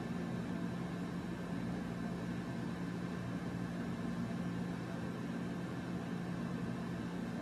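Steady low hum with an even hiss, unchanging throughout: room background noise with no distinct event.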